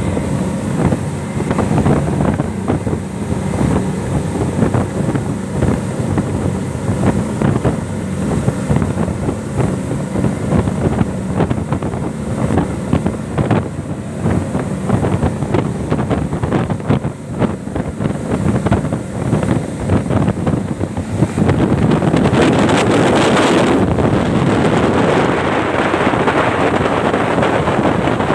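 Four outboard motors on a fibreglass speedboat running at speed, a steady drone over the rush of the wake and wind on the microphone. About two-thirds of the way through, the engine drone fades and the wind and water noise gets louder.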